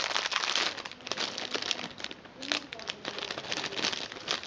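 Thin clear plastic bag crinkling and rustling in the hands as it is opened, in irregular crackles.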